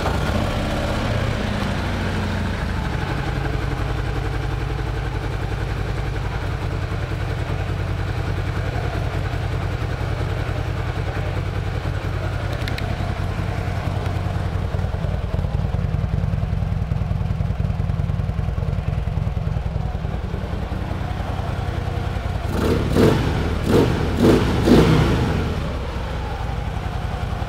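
2014 Harley-Davidson Street Glide's air-cooled V-twin idling through Screamin' Eagle fishtail exhaust pipes, just after starting, its fast idle settling down over the first few seconds. Near the end the throttle is blipped about four times in quick succession.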